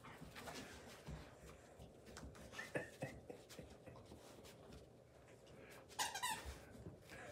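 Puppy giving short, high squeals while playing with a larger dog: a couple about three seconds in and a quick run of them about six seconds in, with soft scuffling of paws on the rug.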